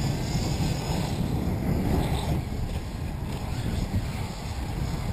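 Wind buffeting the microphone: a steady rushing noise, heaviest in the low end.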